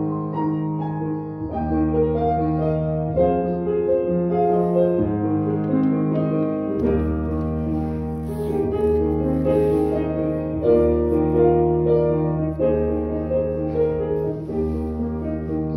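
Background piano music: held chords over a steady bass, changing every second or two.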